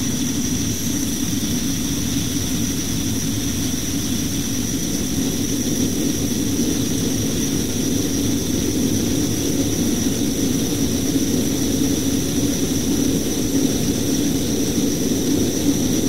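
Gas torch burning steadily: a low rushing noise with a thin, steady high whistle over it, as the flame heats the hub of a radial fan impeller seized on its motor shaft.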